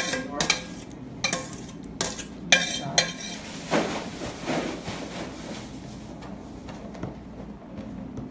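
Kitchen dishes and utensils clinking: a run of sharp clinks and knocks about every half second over the first three seconds, then softer scraping sounds.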